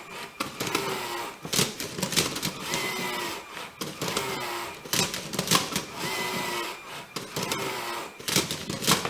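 LEGO Rubik's Cube solving robot at work: its small electric motors whine in short runs, one after another, as it turns the cube's layers and flips the cube, with plastic clicks and clacks between the moves.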